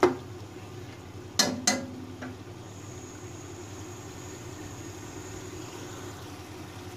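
Steel ladle stirring beef and masala in an aluminium pressure cooker, knocking against the pot at the start and tapping twice on it about a second and a half in. The meat and masala are frying underneath, with a steady low hum from the stove.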